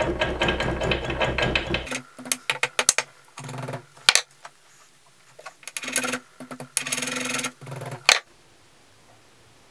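Hand work at a steel bench vise as galvanised steel wire is straightened: scraping and rattling of metal, with two sharp metal clinks about four and eight seconds in, the second as the ball-pein hammer is picked up off the vise.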